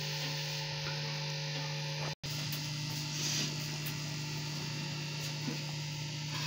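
Steady low electrical hum with an even hiss over it, cut off for an instant about two seconds in.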